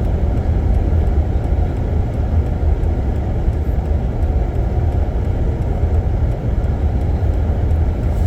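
Steady low rumble of a car driving slowly on a snow-covered road, engine and tyre noise heard from inside the cabin.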